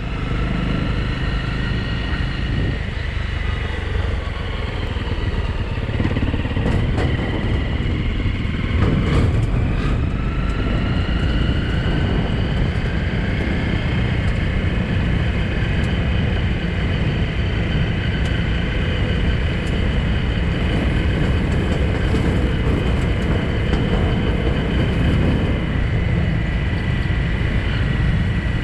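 Motorcycle engine running as the bike rides along: a steady rumble with a whine that dips in pitch, then rises again about ten seconds in.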